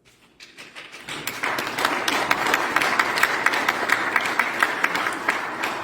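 Audience applauding: the clapping builds over the first second or so, holds steady and begins tailing off near the end.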